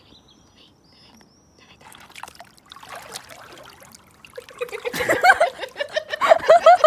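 Pool water splashing and trickling as a baby opossum swims and a person moves through the water, with an excited voice rising over it from a little past halfway, loudest near the end.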